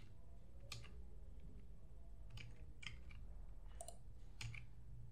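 Faint, isolated clicks at a computer, about five of them spaced irregularly a second or so apart, over a low steady hum.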